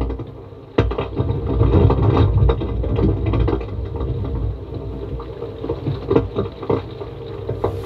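Sound recorded down a drilled well pipe: a low, continuous rumble with irregular knocks and clicks, several a second, which the uploader takes for underground tunnel-digging work.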